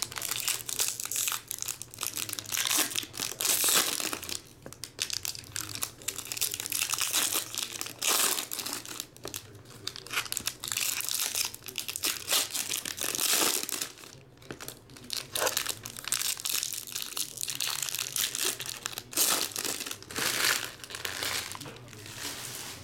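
Foil trading-card pack wrappers (2019 Topps Chrome jumbo packs) being torn open and crinkled by hand, in irregular bursts of crackling with short pauses.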